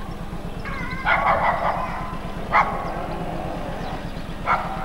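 A dog barking: a quick run of short barks about a second in, then single barks twice more, over a steady low buzz.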